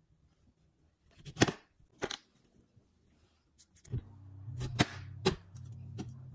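Kitchen knife clicking against a ceramic plate while a soft peeled persimmon is cut into pieces: about six sharp clicks, spaced irregularly. A low steady hum comes in about four seconds in.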